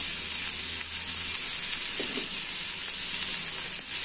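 Chopped onions sizzling in oil on a hot iron griddle: a steady frying hiss.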